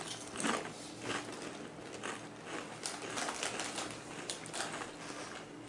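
Several children crunching Doritos tortilla chips: an irregular run of crisp crunches and cracks.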